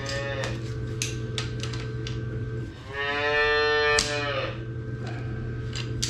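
A calf bawling: a short call at the start and one long, loud call about three seconds in. Sharp metal clicks from a wrench on a brass compression fitting are heard over a steady low hum.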